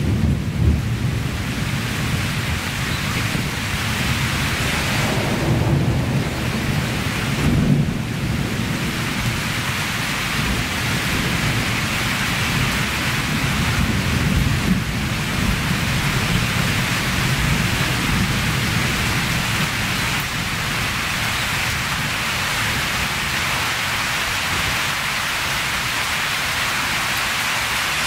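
Rain falling steadily in a storm, a dense even hiss. Under it runs a low rumble that swells a few times in the first eight seconds or so.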